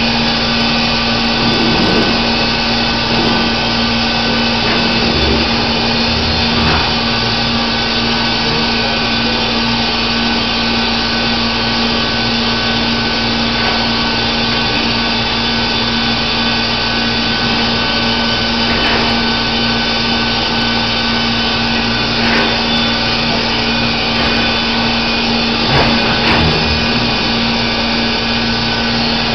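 Baker Super Streak band sawmill running steadily: a continuous loud mechanical drone with a constant hum, broken by a few faint knocks.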